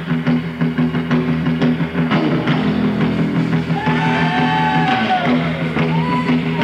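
Live surf and garage rock band playing loud: electric bass, organ and drums, with low notes held under steady drum hits and a sliding lead line coming in about four seconds in.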